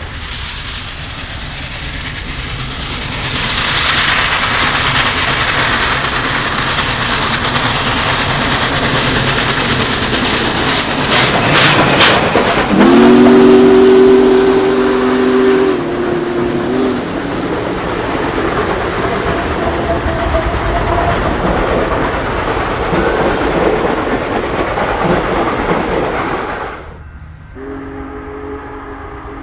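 Union Pacific 4014 Big Boy, a 4-8-8-4 articulated steam locomotive, running past with its train: a steady rush of exhaust and rolling wheels, with a burst of sharp clatter about eleven seconds in. Just after, its whistle sounds one chord of several tones for about four seconds, the loudest moment. Near the end the sound cuts abruptly to a quieter scene with another steady chord of tones.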